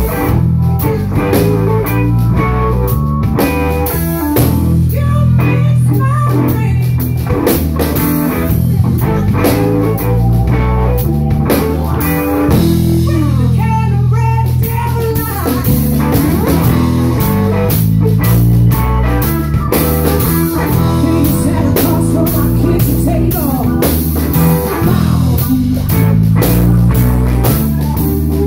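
Live electric blues band playing: a heavy electric bass line and drum kit under electric guitar, with a stretch of sliding, bending notes about halfway through.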